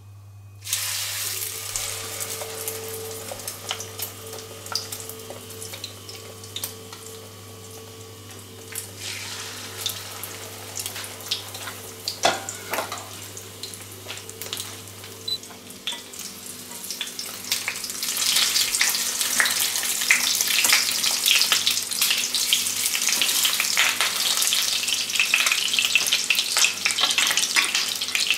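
Egg-battered trevally fillets frying in hot oil in a nonstick frying pan, a crackling sizzle. It starts suddenly as the fish goes into the pan and grows louder and denser about two-thirds of the way through.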